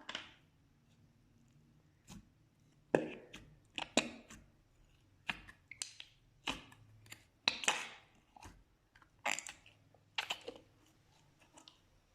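Slime being worked, giving a dozen or so irregular sticky clicks and pops, each short and trailing off quickly.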